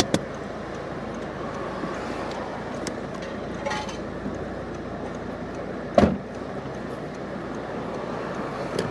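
Steady street traffic noise heard from a car, with a few faint clicks and one sharp thump about six seconds in.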